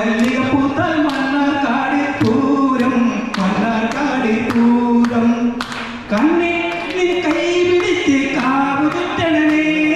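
A man singing unaccompanied into a microphone, holding long notes, with hand claps keeping a steady beat.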